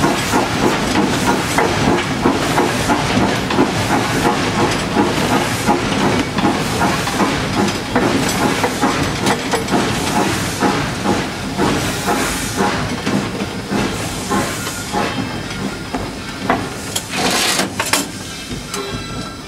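Tweetsie Railroad No. 190, a 2-8-2 steam locomotive, heard from inside its cab while running: rhythmic exhaust chuffs over a constant steam hiss and mechanical clatter. It gets quieter near the end.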